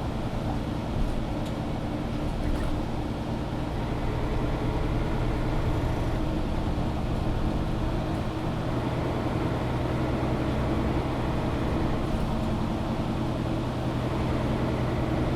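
Mercedes-Benz O530 Citaro G articulated city bus heard from inside the passenger cabin: engine and drivetrain running steadily with a low hum, a little louder from about four seconds in.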